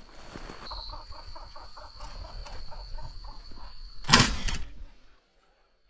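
A flushed upland game bird clucking in a quick, even series of notes, about four or five a second, for some four seconds. A single shotgun shot comes about four seconds in and is the loudest sound.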